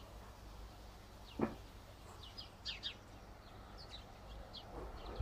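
Small birds chirping in short, high, downward-sliding notes, with one louder call falling in pitch about a second and a half in, over a faint low steady rumble.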